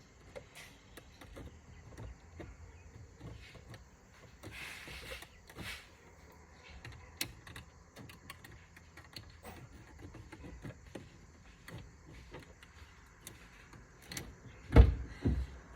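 Scattered light clicks, taps and rattles of hand tools and parts being handled, with a brief rustle about four and a half seconds in. Near the end come two loud heavy thumps in quick succession.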